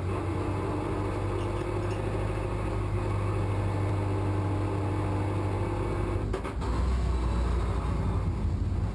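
Race car engine idling steadily, heard inside its stripped cabin. About six and a half seconds in there are a couple of clicks, and the low hum grows a little louder.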